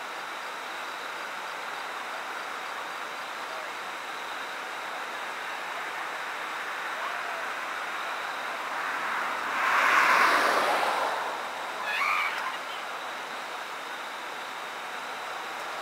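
Steady background hiss, with a passing vehicle that swells and fades about ten seconds in, followed by a brief, fainter burst about a second later.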